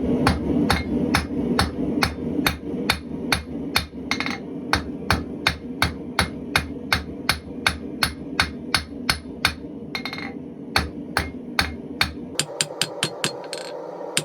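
Hand hammer striking hot stainless steel bar stock on an anvil, spreading out a flat spoon head: steady blows about three a second with a short pause about two-thirds through, then quicker blows near the end, over a steady low hum.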